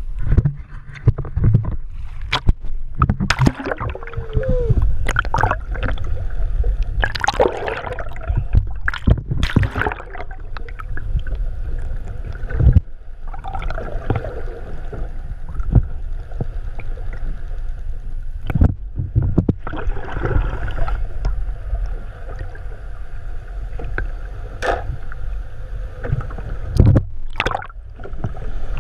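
Fishing boat at sea: a constant low rumble with water sloshing and gurgling, broken by scattered knocks and clatter on deck.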